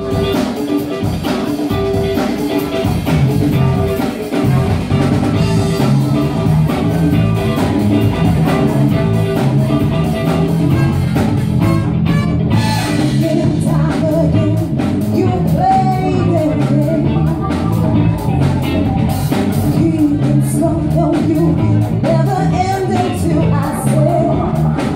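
Live soul band playing: electric guitar over a stepping bass line and drums, with a woman singing and a trumpet joining the melody.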